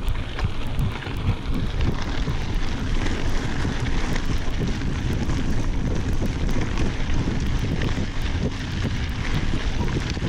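Wind noise on the microphone as a mountain bike rolls along a gravel dirt road, with the tyres crunching over the gravel and the bike rattling.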